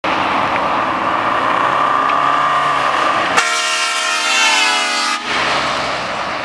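A car-mounted air train horn sounds one blast of about two seconds, a chord of several tones, starting about three and a half seconds in and cutting off suddenly, over a steady rushing noise.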